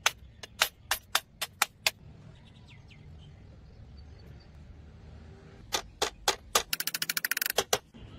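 Metal sword fittings (guard and collar) clicking as they are handled and fitted onto the hilt: several sharp clicks a fraction of a second apart, then a few more and a quick rattling run of clicks near the end.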